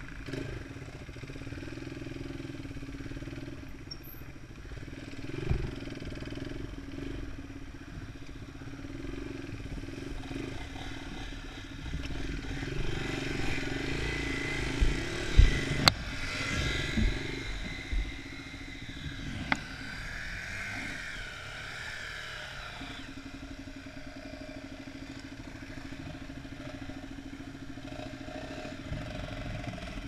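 Enduro dirt bike engines running on a rough trail: the near bike's engine hums steadily at low speed, while from about twelve seconds in another bike revs harder through mud for several seconds. A few sharp clunks, the loudest about halfway, come from the bikes bouncing over the rough ground.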